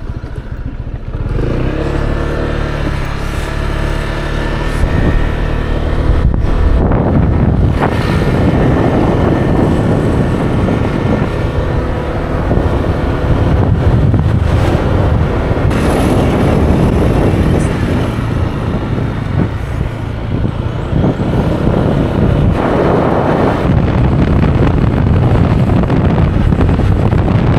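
Motorbike engine pulling away and running at road speed, heard from the pillion seat. The engine rises in pitch twice as it speeds up, under a steady rush of wind over the microphone.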